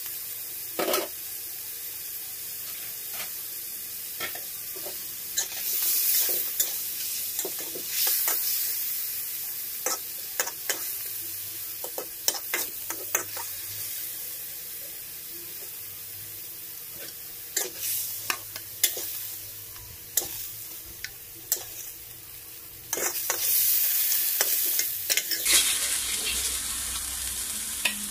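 Chicken pieces sizzling in hot oil in a wok, with a ladle repeatedly knocking and scraping against the wok as they are stirred. The sizzle swells louder now and then as the pieces are turned.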